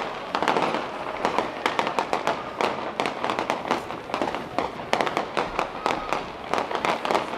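Fireworks going off as a dense run of sharp crackling pops, several a second, over a steady hiss.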